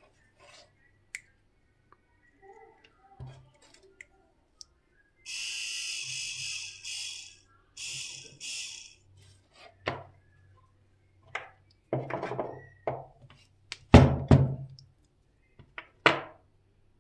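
Handling noises of a small DC motor and a drill chuck on a wooden board: a few short bursts of hissy rustling, then a string of knocks and thuds, the loudest about three-quarters of the way through.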